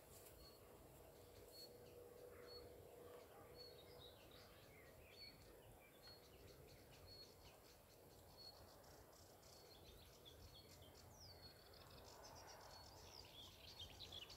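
Faint birdsong: one bird repeats a short, high note about twice a second, while others chirp and twitter, busier in the last few seconds.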